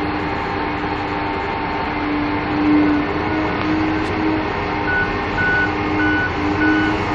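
Heavy diesel engines of a Liebherr R9100 mining excavator and a 100-ton HD785 haul truck running steadily under load. About five seconds in, a reversing alarm starts beeping about twice a second, the sign of a machine backing up.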